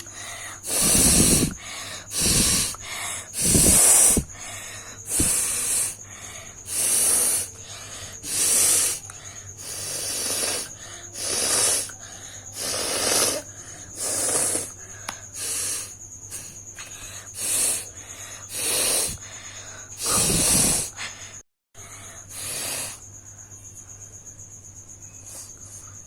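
A person blowing her nose hard over and over: about fifteen forceful blasts of air through the nose, each about a second long and coming one every second and a half, the last about three seconds before the end.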